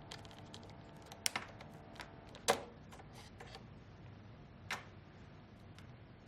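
Scattered light clicks and taps of the Hamilton T1 ventilator's option board and casing being handled as the board is removed. There is a quick pair of clicks just over a second in, the loudest click about halfway, and one more near the end.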